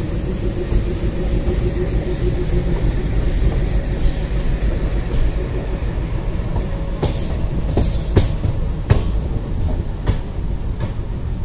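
Express train coaches rolling slowly out of a station yard, heard from an open coach doorway: a steady low rumble of wheels on track, with a run of sharp clacks from about seven seconds in as the wheels cross points and rail joints.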